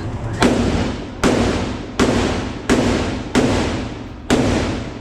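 Gunshots at a shooting range: six single shots, evenly paced about one every three-quarters of a second, each followed by a short echo.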